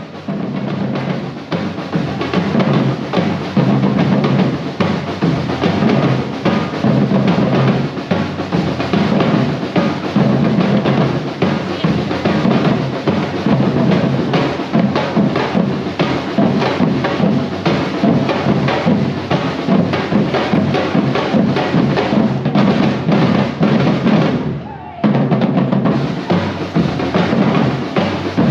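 Drum-heavy music with a steady, driving beat of bass and snare drums. It dips briefly near the end and then carries on.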